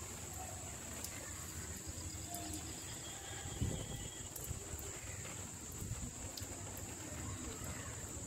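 Outdoor ambience as light rain tapers off: a steady high-pitched insect drone, a few faint bird chirps, and irregular low rumble of wind on the microphone.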